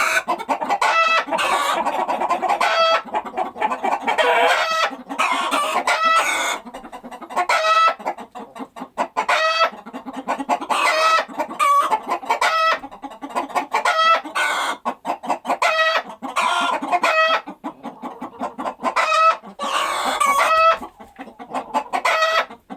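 Chickens clucking and calling over and over, the calls coming in repeated runs every few seconds.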